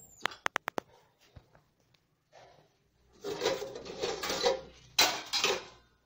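Stainless steel pots and plates in a dishwasher's racks clinking and rattling as the racks are handled. A quick run of small clicks comes first, then a longer rattle about three seconds in, and two loud clatters near the end.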